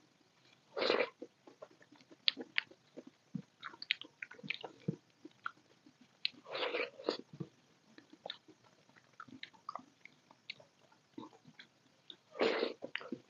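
Close-miked wet chewing, mouth clicks and lip smacks of a person eating soft dal khichdi by hand. Three louder brief rushing sounds come about six seconds apart.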